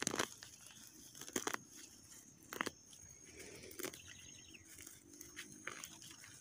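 Footsteps crunching on dry mulch and twigs: a few irregular crackles of dry plant litter underfoot, with a faint steady high tone in the background.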